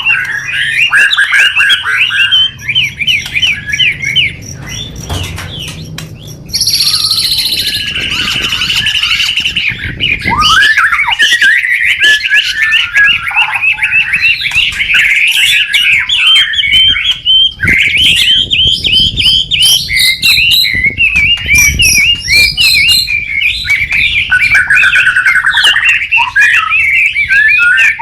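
White-rumped shama singing loud and unbroken, a dense, fast run of varied chattering and whistled notes. About a quarter of the way in, a stretch of higher, buzzy notes.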